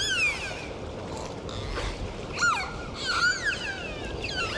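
Dolphins whistling underwater: a run of short whistles that arch up and sweep down in pitch, one at the start, a cluster in the middle and one near the end, over a steady background hiss.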